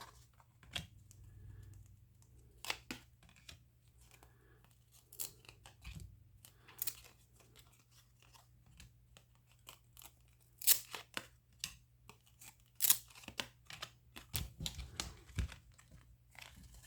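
Handling of 1993 Upper Deck baseball cards and their wrapper: intermittent crinkling, tearing and short flicking sounds, with louder clusters in the second half.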